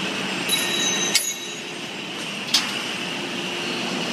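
CNC press brake's hydraulic drive running with a steady hum, with a brief high metallic ringing about half a second in and two sharp metallic clinks, about one and two and a half seconds in.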